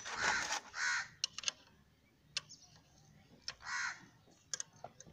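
A crow cawing three times in harsh, rasping calls, with a few sharp clicks in between from tools being worked on the engine.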